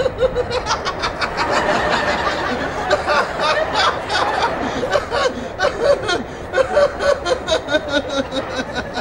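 A man laughing in long runs of quick, chuckling snickers that go on without a break.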